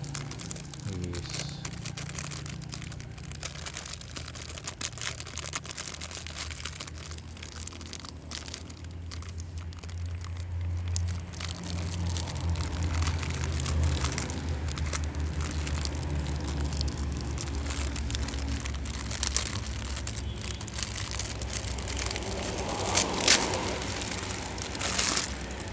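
Thin clear plastic packaging crinkling and crackling as it is handled and pulled open by hand to free a toy, in a dense irregular patter of small crackles, with a few louder crackles near the end.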